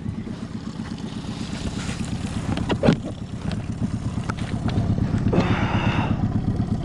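Outboard boat motor running steadily, with a brief hiss about five and a half seconds in.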